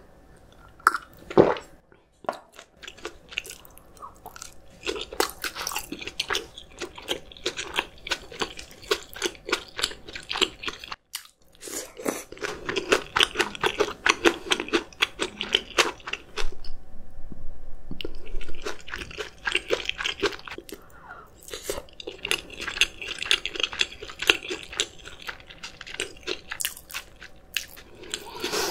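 Close-miked chewing: runs of quick, crisp crunches with short pauses, the sound of a person eating.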